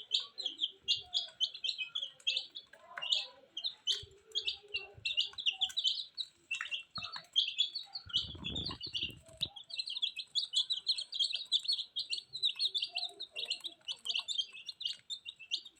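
Several chicks peeping continuously, with many short, high, overlapping chirps. A brief low rumble comes about halfway through.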